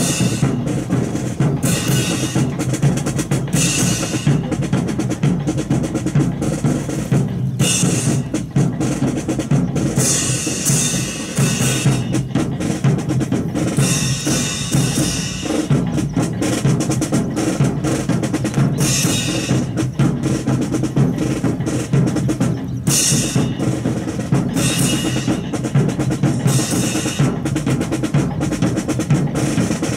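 Marching drum cadence: snare drum and bass drum keeping a steady beat, with snare rolls, accompanying a rifle drill team's marching.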